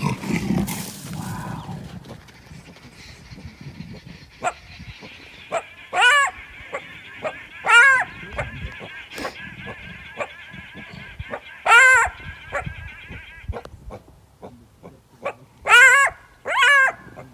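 Big cats snarl in a brief scuffle at the start, as a leopard drives a cheetah off its kill. After that, a cheetah chirps again and again: five short, high yelping calls, the last two close together, over a steady high buzz in the background.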